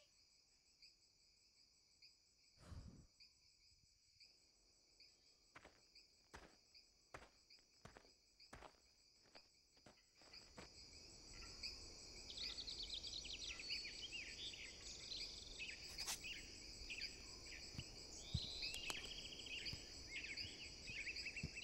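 Insects chirring steadily in high, even tones, with scattered sharp clicks in the first half. From about halfway, birds chirping and twittering join in and the whole grows louder.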